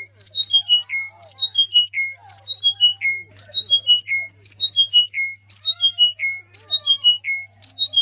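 A songbird singing the same short phrase over and over, about once a second: five or six clear whistled notes stepping down in pitch, each phrase ending on a slightly longer low note.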